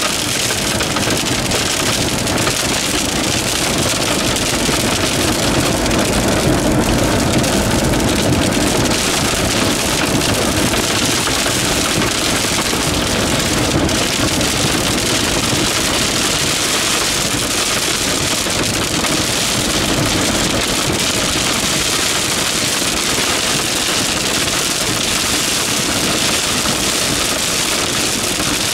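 Hailstorm: a loud, steady downpour of rain and hail.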